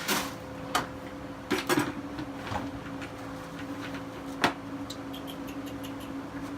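Scattered knocks and clatters of handling, with a sharp click about four and a half seconds in and a run of light ticks after it, over a steady low hum.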